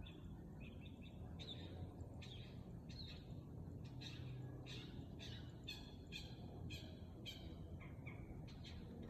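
A bird calling in a steady run of short, high chirps, about two or three a second, over a low background hum.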